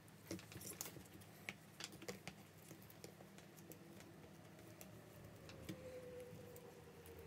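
Faint, scattered small clicks and taps of an iPhone 6's screen assembly and internal parts being handled and pressed into place on the phone's frame, thickest in the first couple of seconds.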